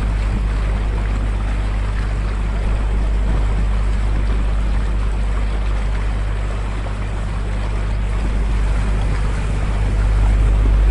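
Small canal tour boat underway: its motor hums steadily under the churning wash of the wake, with wind on the microphone. The sound grows louder near the end as the boat passes under a stone bridge.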